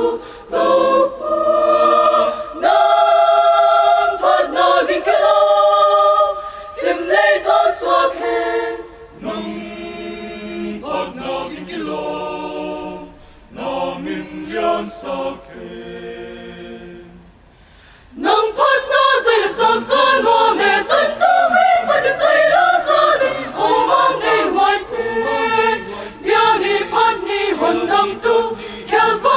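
Mixed choir of men and women singing a gospel song in parts. Loud full chords open, the singing drops to a soft passage that fades almost away before the middle, then the whole choir comes back in strongly about two-thirds of the way through.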